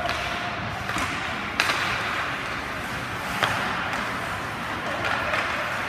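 Two sharp clacks of hockey stick and puck play, about two seconds apart, over a steady rink background noise.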